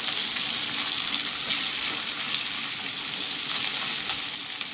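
Chopped onions, green chillies and lentils sizzling in hot oil in a wok with a steady hiss, while a spatula stirs them with light scraping strokes.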